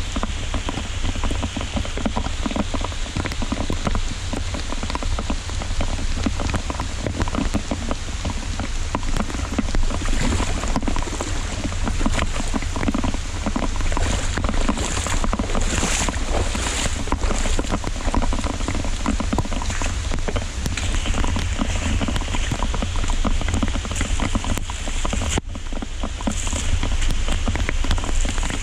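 Heavy rain pouring down in a steady, dense patter, with a continuous low rumble underneath.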